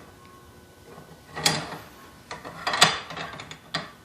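Metallic clicks and sliding rattles of a Remington 700 rifle bolt being worked by its newly fitted custom bolt knob: a sharp click about a second and a half in, a quick cluster of clacks a little later, and a last click near the end.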